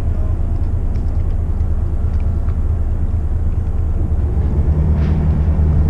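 Low, steady rumble of a McKinna 65 motor yacht's diesel engines running at slow manoeuvring speed, with a steadier hum joining about four and a half seconds in.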